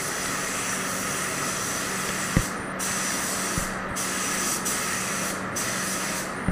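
Gravity-feed paint spray gun spraying a car bumper: a steady hiss of atomising air and paint that cuts off briefly about four times as the trigger is released between passes. A steady low hum runs underneath, with a couple of faint knocks.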